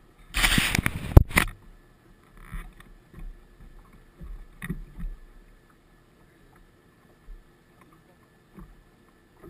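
A loud brush and rustle with a sharp knock close to the boat-mounted camera's microphone about half a second to a second and a half in, as the angler rises past it, then a few soft thumps of footsteps on the bass boat's deck. A faint steady high whine runs underneath.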